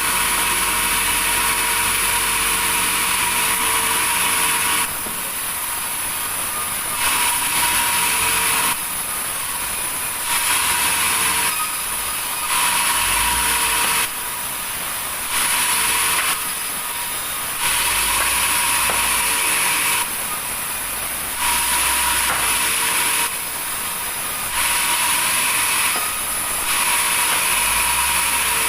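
Sawmill saw cutting timber: a steady high whine with a hissing cut. It switches abruptly between louder and quieter stretches every second or two.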